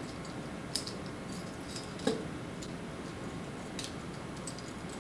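Metal handcuffs and their keys being handled: a few scattered faint metallic clicks, with a slightly heavier knock about two seconds in, over a steady tape hiss.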